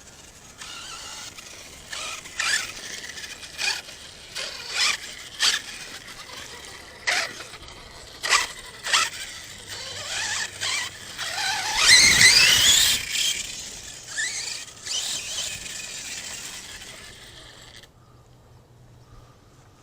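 ARRMA Kraton 6S RC monster truck's brushless electric motor whining in bursts as it accelerates over dirt, with a string of short sharp squeals and clicks. The loudest stretch comes about twelve seconds in, as a rising whine, before it fades away.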